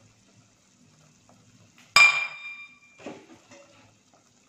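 Kitchenware set down with one sharp clink about two seconds in, ringing for about half a second, then a few quieter handling knocks.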